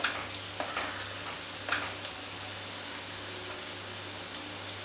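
Potato-filled snacks deep-frying in hot oil, a steady sizzle with a few sharp ticks in the first two seconds.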